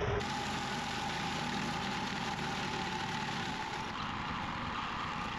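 Small engine of an old Kyoritsu hammer knife mower running steadily at one pitch while mulching bamboo canes. The mower is driven in a wheelie to keep the load on the aged engine low.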